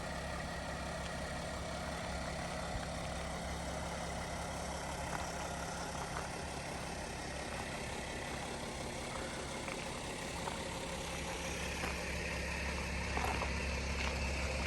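Mercedes Sprinter van's engine idling steadily, a low even hum.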